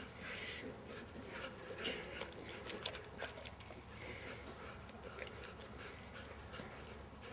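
English Mastiff chewing and gnawing on a raw pork butt, with irregular clicks and smacks from the jaws working the meat.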